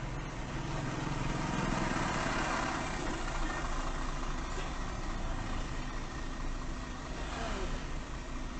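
Car engine idling steadily, heard from inside the cabin through a dashcam, while other vehicles pass close by.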